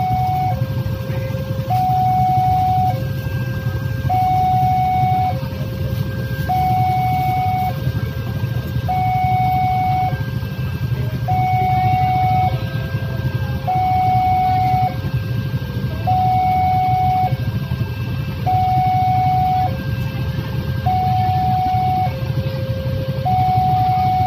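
Railway level-crossing warning alarm sounding: an electronic two-tone chime alternating evenly between a higher and a lower note, each held about a second, signalling that the crossing is closed for an approaching train. Under it runs the low, steady rumble of the waiting traffic.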